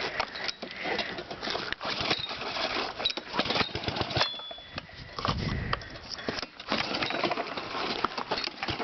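Pull-start attempts on a 5 hp Honda engine fitted to a pressure washer on a cold start: the recoil starter is yanked several times and the engine turns over with a brief low surge about five seconds in but does not settle into a steady run.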